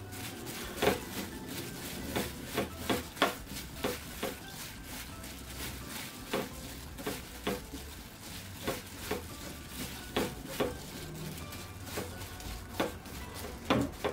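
Gloved hand tossing cubed cucumber with seasoning in a glass bowl: irregular rustles of the plastic glove and soft knocks of the cucumber pieces against the glass, roughly two a second.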